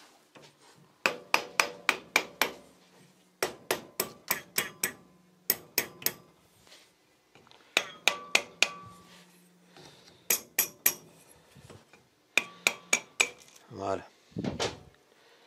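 A soft-faced mallet taps the cylinder of a TGB 50cc scooter engine in six short bursts of four to six quick taps each, knocking the cylinder loose from the crankcase.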